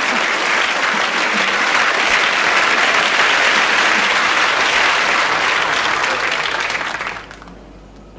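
Studio audience applauding, loud and sustained, then dying away about seven seconds in.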